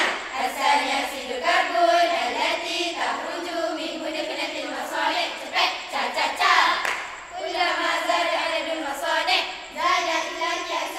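A group of girls' voices singing together in long, sustained phrases.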